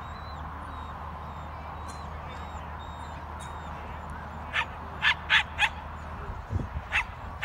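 Crow cawing: a quick run of four short, harsh caws a little past halfway, then another near the end, over a steady low rumble.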